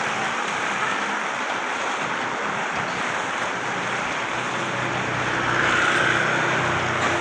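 Steady hiss of rain mixed with traffic on a wet road, swelling briefly about five and a half seconds in as a vehicle passes.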